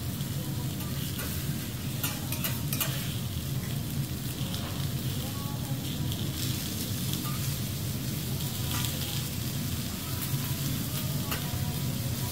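Onion rounds, mushrooms and zucchini slices sizzling steadily on a hot steel teppanyaki griddle, with a metal spatula now and then clicking and scraping on the plate. A steady low hum runs underneath.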